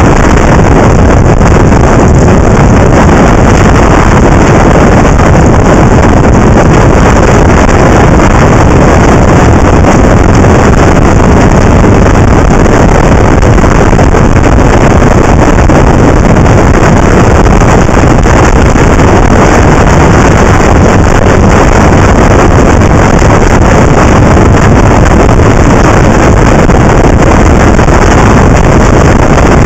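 Loud, steady wind rush on the microphone of a camera mounted on a moving motorcycle, the rushing noise of riding at road speed with no breaks or separate events.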